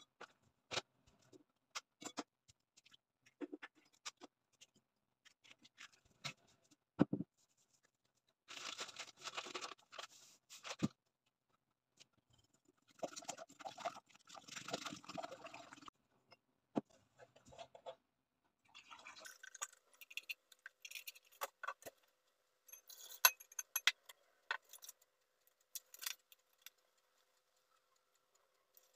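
Wire whisk beating eggs and then a flour-and-milk batter in a glass bowl: scattered taps and clinks against the glass, with two spells of quick whisking about nine and thirteen seconds in, and a longer spell of whisking with many clinks in the last ten seconds.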